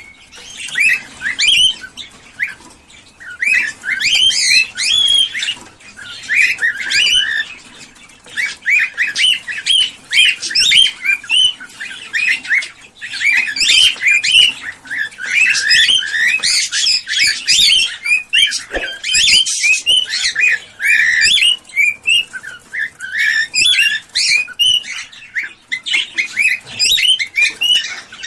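A room of caged small birds, budgerigars among them, chirping and chattering almost without pause in quick, high warbling phrases, with a few short lulls.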